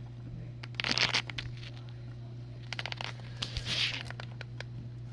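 Steady low hum of a GE Profile dishwasher running, broken by two bursts of crinkling, clicking noise: one about a second in, and a longer one from about three to four seconds.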